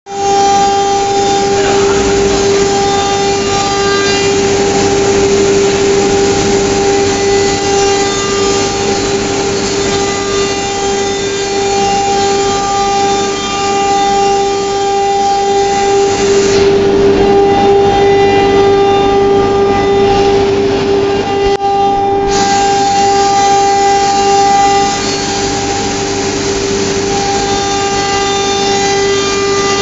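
CNC router spindle running with a steady high whine while the bit cuts a board, over a wide cutting and dust-extraction hiss. The hiss eases for several seconds a little past halfway, while the whine carries on.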